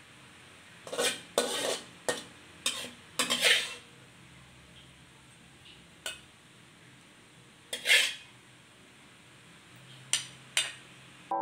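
Metal cooking utensil scraping and clinking against a metal wok and a ceramic plate as a stir-fry is scooped out, in short irregular strokes: a quick run of them in the first few seconds, then single ones spaced a couple of seconds apart.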